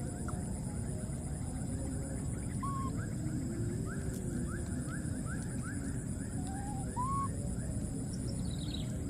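Outdoor ambience over a constant low rumble: a steady high hum, a rapid run of short rising chirps, and two brief arching animal calls, about three and seven seconds in.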